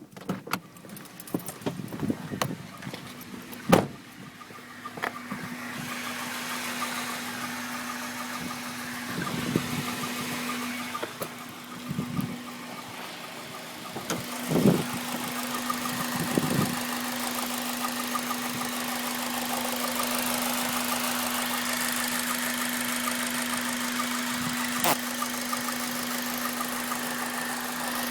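Honda Civic Type R (EP3) 2.0-litre four-cylinder engine running warm with a steady hum, after several sharp knocks in the first few seconds; it gets louder about six seconds in and swells briefly a few times. The engine has a warm-engine rattle that turned out to be a failing timing chain tensioner.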